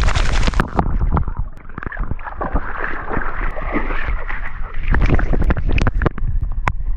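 Water splashing and sloshing around a Labrador retriever moving through water, with a burst of splashing at the start and low rumbling on the dog-worn camera.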